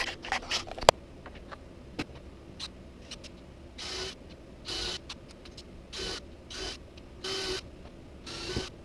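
A power drill running in short bursts, about six brief spins of half a second or less roughly a second apart, starting about halfway through. A few sharp clicks and knocks come first.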